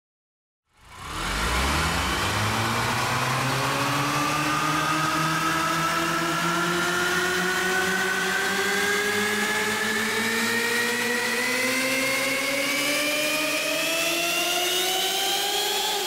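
Cinematic riser sound effect: a tone rich in overtones over a bed of hiss, swelling in about a second in and then gliding slowly and steadily upward in pitch for about fifteen seconds.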